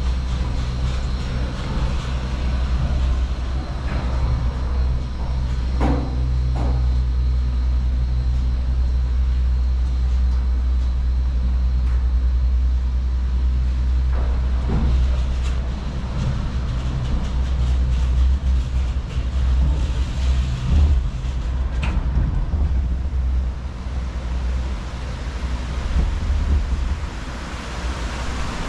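Ride on a Garaventa six-seat chairlift: a steady low rumble with a faint hum and a few short knocks, the rumble easing a little over 20 seconds in.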